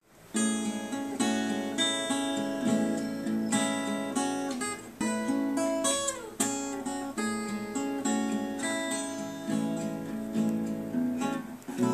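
Acoustic guitar played solo, an instrumental passage of plucked and strummed chords, each attack ringing and decaying. About halfway through, a note slides down in pitch.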